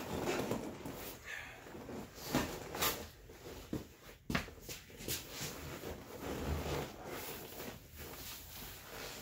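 A replacement seat cover being pulled and stretched down over a truck seat back's foam: rustling and scuffing of the cover material, with several sharp clicks and knocks in the middle.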